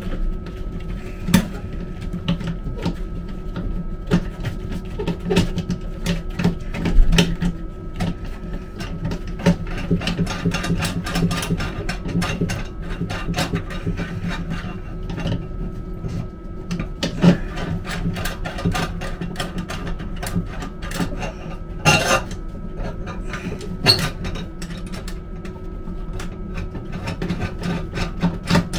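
Irregular clicks and knocks of hand work on a train toilet's vacuum breaker as its diaphragm assembly is reseated on the studs, with a few sharper knocks, over a steady low hum.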